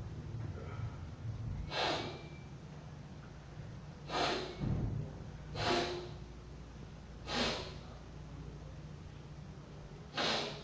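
A man's sharp, noisy breaths through the nose or mouth, five short ones a second or two apart.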